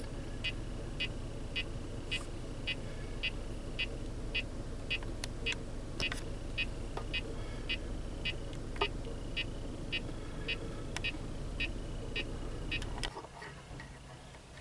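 Car engine idling with a short, high-pitched beep repeating nearly twice a second from inside the cabin. About thirteen seconds in, the engine shuts off and the beeping stops with it.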